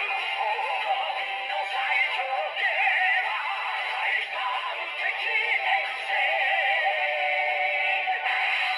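A Kamen Rider toy transformation belt playing electronic music with a synthesized, sung melody. The sound is thin, with no bass, as from the toy's small speaker.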